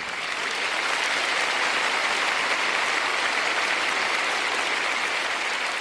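Large audience applauding steadily after the final chord of an instrumental piece.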